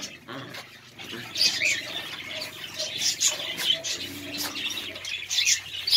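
Birds chirping, short high calls a few times a second apart.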